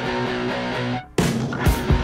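Background rock music with guitar: it drops out briefly about a second in, then comes back louder with hard drum hits.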